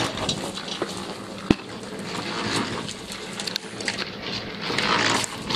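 Concrete mixer running with a steady hum, under scattered clicks and knocks, with one sharp knock about a second and a half in and a rise of scraping noise near the end.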